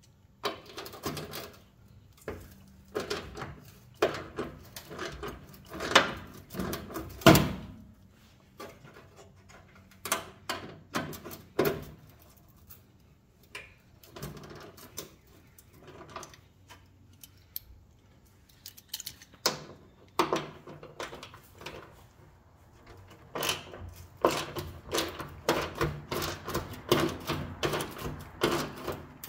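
Hand socket ratchet clicking as half-inch bolts are backed out of a Jeep inner fender panel, in uneven runs with knocks and pauses, then a fast, dense run of clicks near the end.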